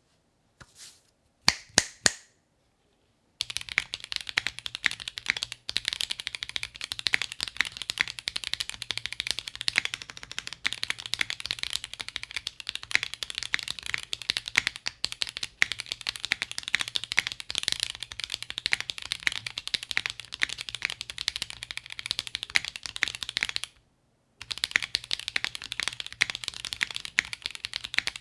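Mechanical keyboard with Kailh Xuan tactile switches (MF stem, LCP housing) being typed on, with a clean, clacky sound. A few single keypresses come first, then after a short silence continuous fast typing, broken by one brief pause near the end.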